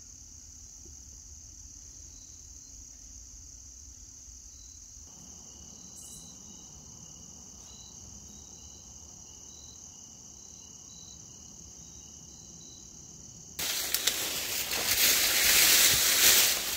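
A steady high-pitched insect trill in the background. About fourteen seconds in, loud rustling and crunching takes over.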